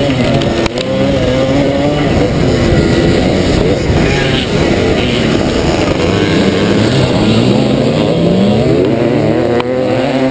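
1977 SWM 250RS two-stroke motocross bike running hard under a rider, its revs rising and falling over and over as it accelerates and changes gear across rough ground.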